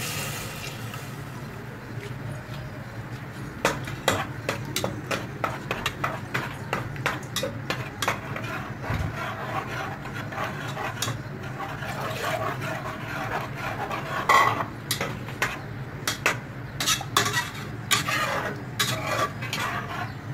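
A spatula stirring a thin curry in an aluminium pressure cooker, scraping and knocking against the pot in quick irregular clicks that grow busier near the end, over a low steady hum. Liquid masala is poured into the pot at the start.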